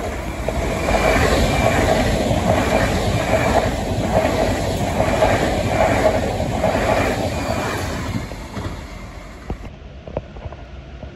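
Deutsche Bahn ICE 3 high-speed electric train passing close by, its cars running over the rails with a regular pulse about every two-thirds of a second. The sound fades after about eight seconds and drops to quieter track-side background near the end.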